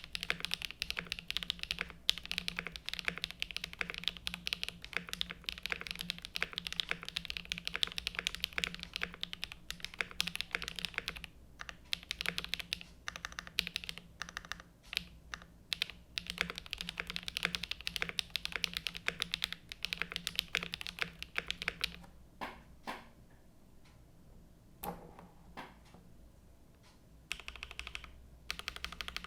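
Typing on a Zoom75 gasket-mount mechanical keyboard with HMX Cheese linear switches on an aluminium plate and GMK Fuji keycaps. Fast, continuous runs of keystrokes are broken by a short pause about a third of the way in. Near the end comes a sparser stretch of a few single strokes before the fast typing resumes.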